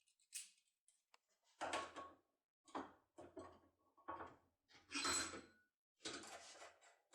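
Thin metal foil being handled and cut into strips: about six short rustling, scraping bursts.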